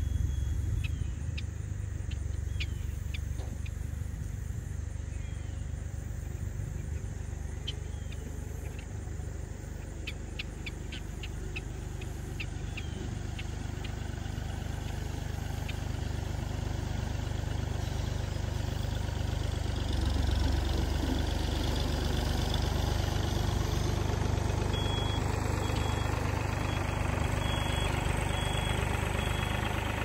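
Farm tractor's engine running steadily at low revs, growing louder about two-thirds of the way through as the tractor comes up to the egg mobile it is about to tow.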